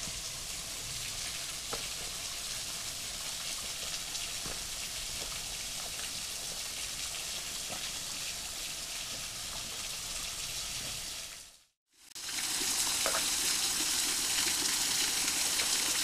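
Steady splashing hiss of a thin waterfall falling off a rock ledge onto stones, with a few faint clicks of footsteps on rock. About twelve seconds in the sound drops out for a moment and comes back louder and closer to the falls.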